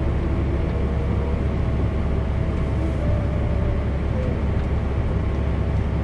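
Steady low drone of a tractor's engine heard inside its cab, running beside a John Deere 9670 STS combine that is harvesting soybeans.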